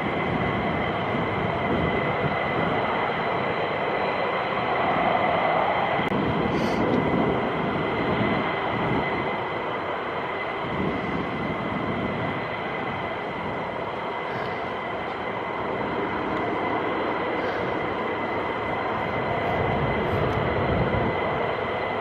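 Twin-engine F-15 jet engines making a continuous loud roar with a steady high whine running through it.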